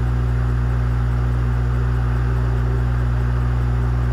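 A steady low hum with an even hiss above it, unchanging throughout.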